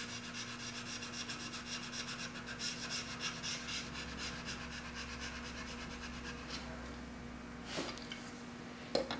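Flat back of a steel blade rubbed back and forth on a fine DMT diamond sharpening plate in quick, even scraping strokes, removing the burr (wire edge) raised by sharpening. The rubbing stops about two-thirds of the way in, followed by a couple of sharp knocks near the end as the blade and jig are lifted.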